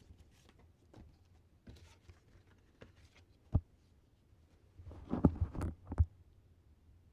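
Hands handling a CD and its packaging: scattered light clicks and rustles, a single knock about three and a half seconds in, then a short cluster of louder knocks and rattles about five seconds in.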